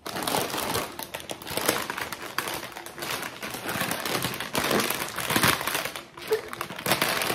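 Plastic snack bag of holiday tortilla chips crinkling loudly as it is handled and pulled at the top to open it, with a brief lull about six seconds in.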